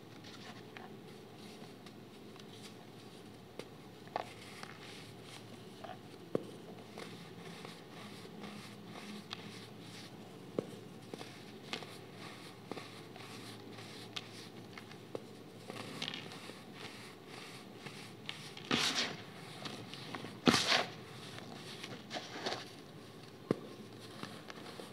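Hands crushing and crumbling molded chunks of dried baking soda: soft crackling and crunching with scattered small snaps. Several louder crunches come in the second half, over a faint steady hiss.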